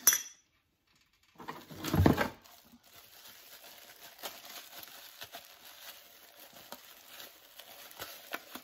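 Plastic wrapping crinkling and rustling as a cellophane-wrapped package of tinsel is handled, with a louder rustle about two seconds in and a short clink at the very start.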